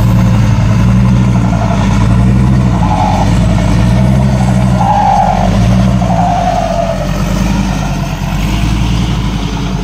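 A dump truck's diesel engine revving hard through a loud exhaust as the truck climbs the dirt slope out of the pit under load, its pitch rising and falling several times as the throttle is worked.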